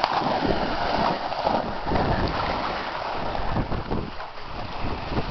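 Wind gusting across the microphone, rumbling unevenly, over the wash of lake waves on the shore.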